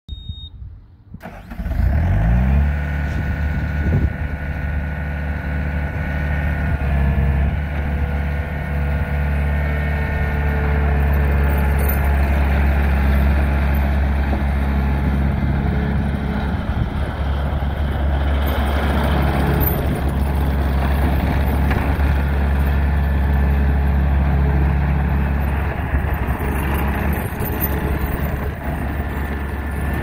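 Diesel engine of a 2005 Bobcat T300 compact track loader starting: it cranks and catches with a quick rise in revs under two seconds in, then runs steadily.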